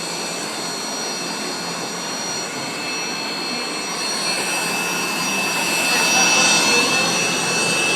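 Steady rushing machine noise with a few high, steady whining tones over it, growing louder about halfway through.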